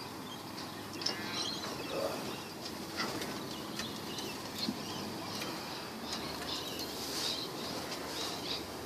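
Small birds chirping and twittering in short high calls, with a few sharp clicks.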